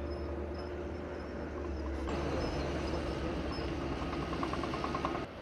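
Heavy diesel earth-moving machinery, such as a bulldozer, running with a steady low engine hum, with a quick run of regular metallic ticks near the end.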